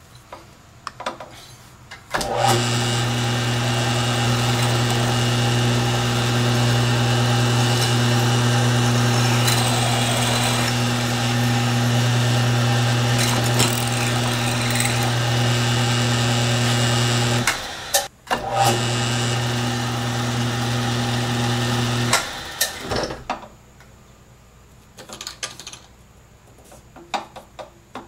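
Powered drilling machine running a twist drill bit into a solid copper block: a steady motor hum that drops out briefly about 17 seconds in, comes back, and stops about 22 seconds in, followed by a few light clicks.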